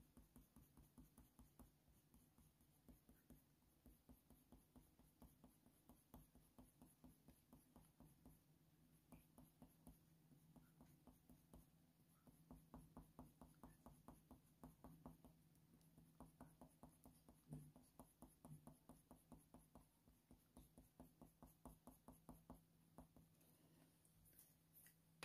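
Very faint scratching of a Faber-Castell Polychromos coloured pencil on hot-press watercolour paper, in quick short shading strokes that come thicker in the second half, over a faint steady hum.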